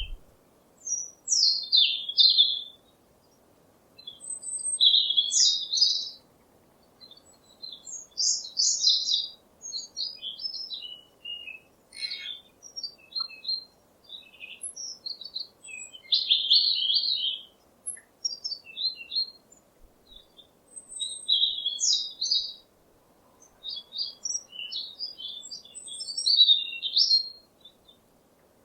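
Songbirds singing: quick high-pitched chirps and trills in phrases of one to two seconds, with short pauses between them.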